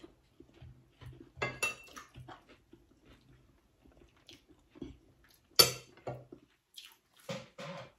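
Spoon and fork clinking and scraping against ceramic plates and bowls during a meal, with bits of chewing between. A single sharp clink about five and a half seconds in is the loudest.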